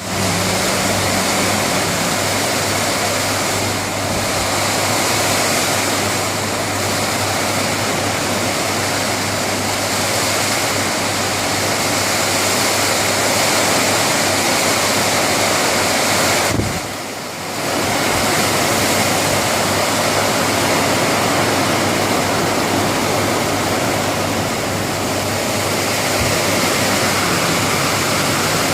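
Heavy rain falling: a loud, steady, dense hiss, with a steady low hum beneath it. The rain noise drops briefly for about a second two-thirds of the way through.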